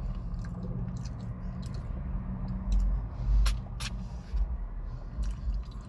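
A person chewing food close to the microphone: mouth sounds over a low rumble, with a couple of sharp clicks about three and a half seconds in.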